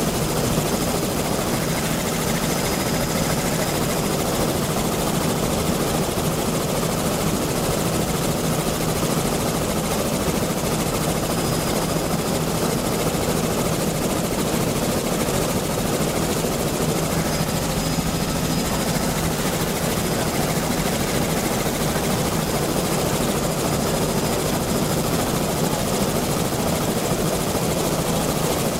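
Helicopter cabin noise from a low-level aerial survey flight: a steady, unchanging drone of rotor and engine with two low hum tones.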